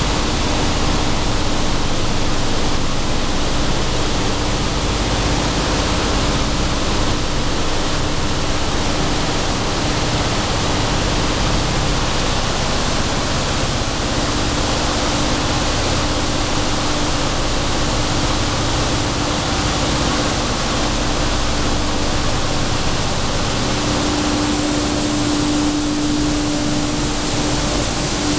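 Sunflower seed dehulling line machinery running, a loud, steady rushing noise with a constant hum that grows stronger near the end.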